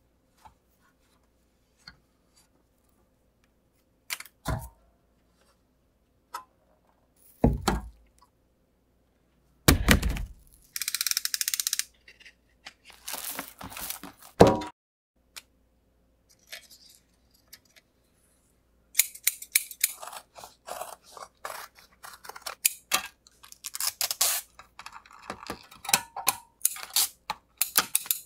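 Scattered knocks and taps of hands working on a plastic brake dust shield, then the rustle of a roll of prepreg carbon fiber being unrolled from its white backing paper. From about two-thirds of the way in, scissors snip repeatedly through the prepreg carbon fabric in quick, closely spaced cuts.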